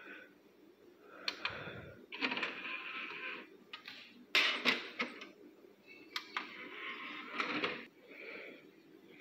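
Rustling and handling noise, with several sharp clicks scattered through it, from a phone camera and a plush toy being moved about close to the microphone.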